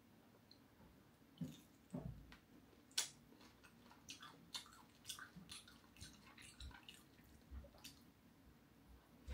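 Faint close-miked eating sounds: scattered short clicks and crackles of chewing crispy fried dried shark catfish, with sticky mouth and finger sounds, the sharpest click about three seconds in and the clicks coming thicker in the second half.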